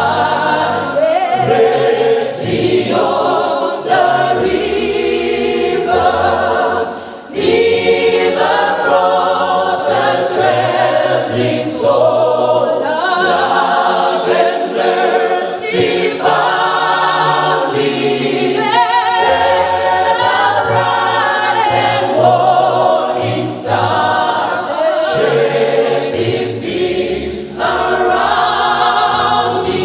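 A choir singing a hymn, several voices together in sung phrases, with a short break between phrases about seven seconds in.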